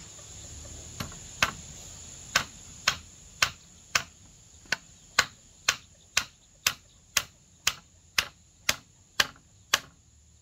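A hammer striking a frame of wooden poles in a steady rhythm, about seventeen blows at roughly two a second, each with a short ringing tail. A steady high-pitched insect drone runs behind it.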